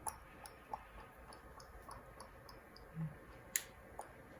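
Faint, scattered light clicks and ticks of small containers and utensils being handled, with one sharper click about three and a half seconds in.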